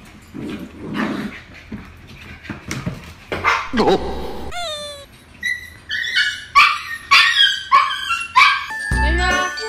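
Husky puppies play-fighting, yipping and barking, with a whine about halfway through and then a quick run of high yips about every half second. A jingly tune starts just before the end.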